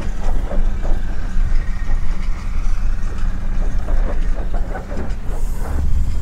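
4x4 camper truck driving over a rough dirt track, its engine running as a steady low rumble under frequent irregular rattles and knocks from the jolting body and load.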